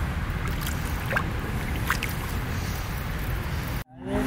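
Steady wind rumbling on the microphone outdoors, with a couple of faint brief sounds about one and two seconds in. It drops out suddenly near the end.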